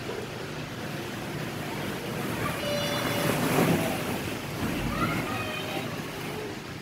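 Busy indoor children's play area: a steady wash of crowd noise with children's voices and shouts, including a high-pitched child's squeal about three seconds in.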